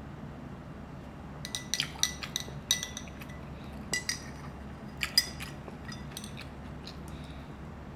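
Metal cutlery clinking against dishware during eating: a string of irregular, sharp, ringing taps, thickest from about a second and a half in until about six seconds in.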